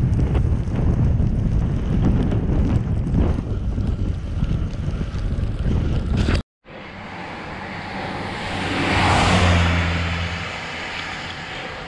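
Wind buffeting the microphone of a camera mounted on a moving bicycle. After a sudden cut, a car passes on wet asphalt: its tyre hiss and spray swell to a peak with a low engine hum, then fade away.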